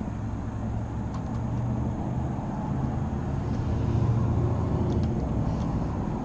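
Low rumble of a motor vehicle's engine running, growing louder about four seconds in and then easing off, with a few faint light clicks.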